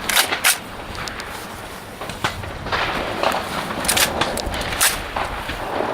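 Several sharp clicks and knocks at irregular intervals, a pair near the start and the loudest about four and five seconds in.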